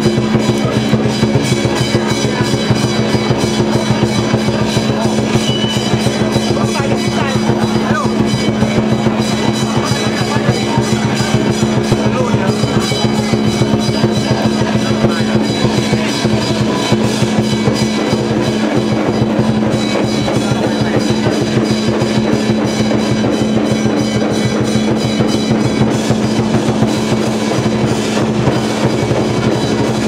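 Loud, continuous drumming, beaten rapidly and without a break, with steady held tones underneath.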